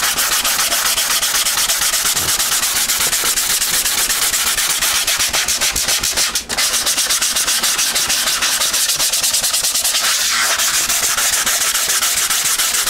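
Hand sanding of cured polyester resin over fiberglass cloth on a model airplane wing: a sanding pad is worked in rapid, steady back-and-forth strokes, with a brief break about halfway through.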